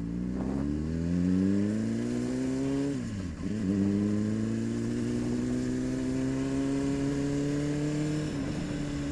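Honda CBR600RR's inline-four engine pulling away and accelerating, its pitch rising. It dips briefly at an upshift about three seconds in, climbs again, and dips at another shift near the end.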